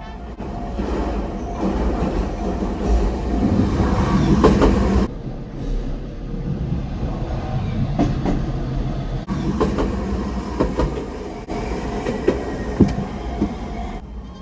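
An Iyo Railway train passing over a level crossing, its wheels rumbling and clacking on the rails with separate knocks. The sound breaks off abruptly several times, as if spliced from separate takes.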